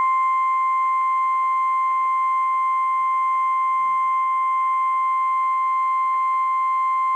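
NOAA Weather Radio 1050 Hz warning alarm tone: a single steady, unbroken beep that signals a warning broadcast is about to follow.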